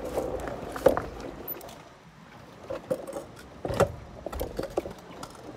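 Motorcycle engine running, then cut off about a second and a half in, followed by scattered clicks and knocks as the bike is handled and parked.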